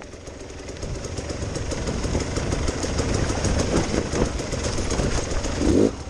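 Enduro dirt bike engine running at low, uneven revs. It drops away suddenly at the start, then builds back up, with a brief louder burst near the end.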